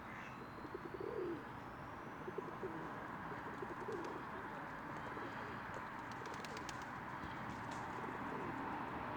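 Birds at a pond giving a few low, soft cooing calls over a steady background hum, with a faint rising whistle early on.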